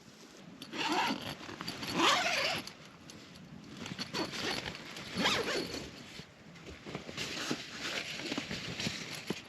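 A zipper being pulled several times in short strokes, with a longer run of zipping and handling noise near the end.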